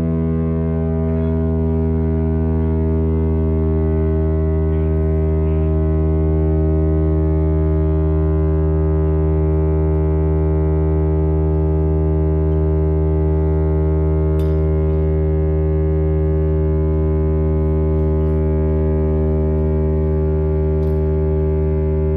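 Chrysler-Bell Victory air raid siren sounding one long steady tone with a strong low pitch and no rise or fall in pitch, which fits the steady alert signal.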